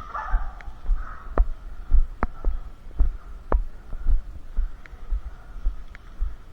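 Low thuds about twice a second, the jolt of a player's footsteps on a body-worn camera, with a handful of sharp clicks.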